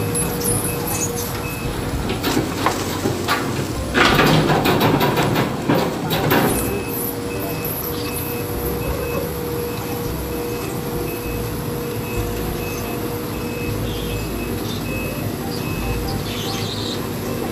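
Amphibious excavator's diesel engine running steadily, with a repeating high travel-alarm beep. About four seconds in, a louder stretch of clattering and rushing noise lasts a couple of seconds.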